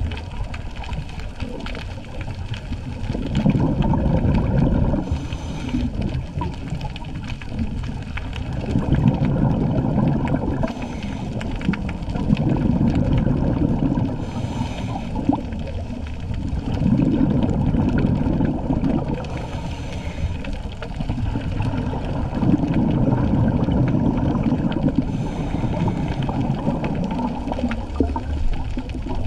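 Scuba diver breathing through a regulator underwater: exhaled bubbles gurgling in a burst of two to three seconds, then the short hiss of an inhalation, repeating about every five seconds, five breaths in all.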